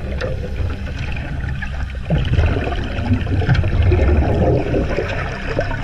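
Underwater water noise picked up by a submerged camera: a dense, crackling bubbling and gurgling.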